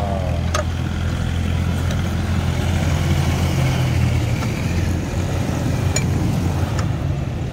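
An engine running steadily with a low, even drone. A couple of sharp clicks sound over it, about half a second in and again near the end.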